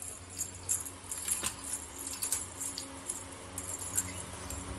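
A small collar bell jingling in short irregular bursts as a playing kitten runs and climbs.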